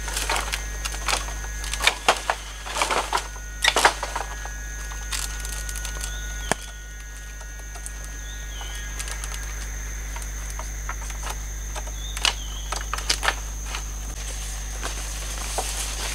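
Cut bamboo poles knocking and clattering against each other as they are gathered into a bundle, in two clusters of sharp knocks with a single click between them, over a steady high-pitched hum.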